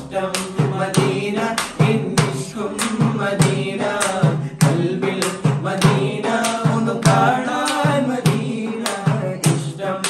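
Male voices singing a madh, an Islamic devotional song, over a steady percussion beat.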